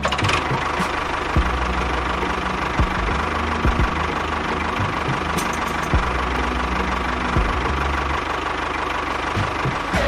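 Tractor engine running steadily with a knocking rattle and a thin steady whine.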